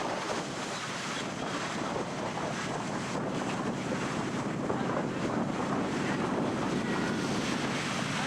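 Ocean surf washing steadily onto a sandy beach, mixed with wind buffeting the microphone.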